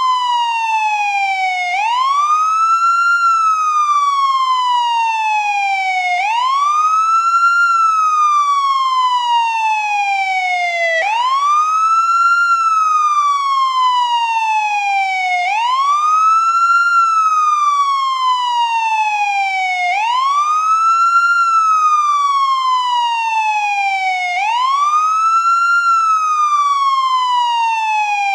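American ambulance siren on the wail setting: each cycle climbs quickly to a high pitch, then falls slowly. The cycle repeats about every four and a half seconds, about six times in all.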